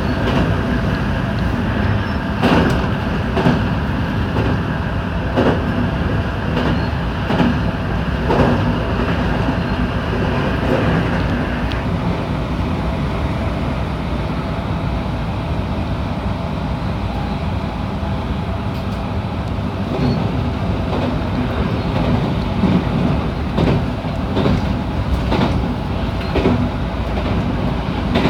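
Electric rapid train running on the line, heard from inside the front car: a steady rumble with sharp wheel clicks over rail joints at uneven intervals. A higher hum in the train's running sound stops suddenly about twelve seconds in.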